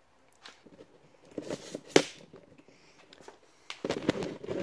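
Scattered small clicks and knocks of a carburetor and tools being handled, with one sharp click about two seconds in and a denser patch of rustling handling noise near the end.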